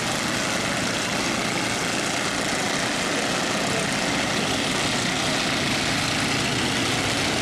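A field of Mini Cup race cars' engines running together around the track on the pace lap, a steady drone with no clear rise or fall.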